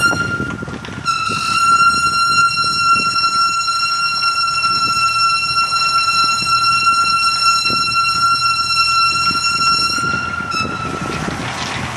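Ferodo DS2500 brake pads in K-Sport calipers squealing under braking: one steady, high-pitched squeal that sets in about a second in, holds for about nine seconds and stops, over a low rolling rumble.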